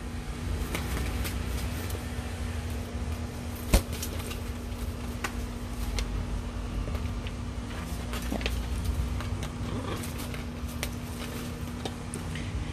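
A steady low mechanical hum over a rumble, with scattered faint clicks and taps and one sharp click nearly four seconds in.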